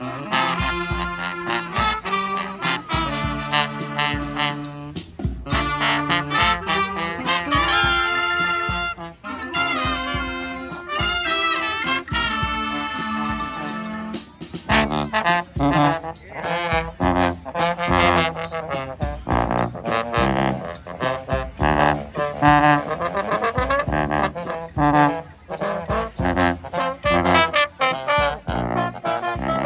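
Brass band playing live: horns in several parts over a steady beat. About halfway through, the long held notes give way to shorter, punchier ones.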